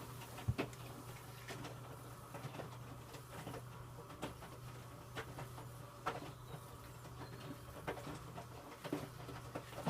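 Electrolux W455H commercial washing machine turning its drum with a wet load during a rinse: a steady low motor hum with irregular soft clicks, knocks and splashes from the laundry and water inside.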